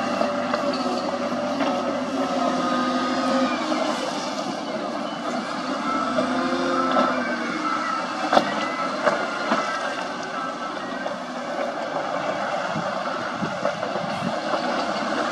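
Diesel engines of an SDLG wheel loader and a dump truck running steadily while the truck's bed is raised to tip its load. A sharp clank comes about eight seconds in, followed by a few lighter knocks.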